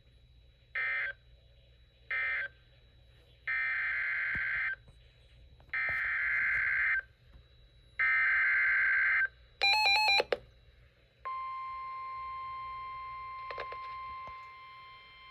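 Emergency Alert System data tones: three short end-of-message bursts about a second apart, then three longer header bursts, each about a second long, announcing the next warning. A brief rapid warble of tones follows, and about 11 s in the steady NOAA Weather Radio 1050 Hz alert tone begins.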